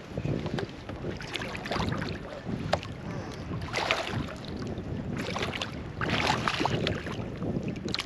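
Water splashing and knocking around a kayak in irregular bursts, with a few sharp clicks.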